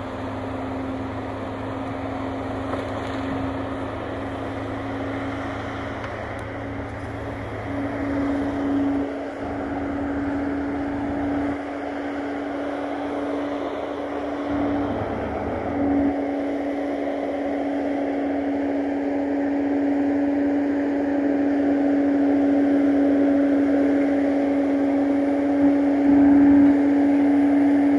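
Bobcat compact track loader's diesel engine running at high, steady working revs while skidding a bundle of logs with its rear grapple, growing louder as it approaches, with a couple of brief dips in pitch.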